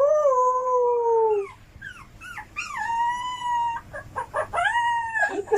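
A dog howling: three long held howls, the first slowly falling in pitch, with short higher calls between them.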